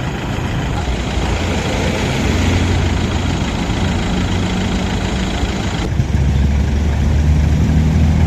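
Road vehicles idling in traffic stopped at a red light: a steady low engine hum, with a heavier engine close by.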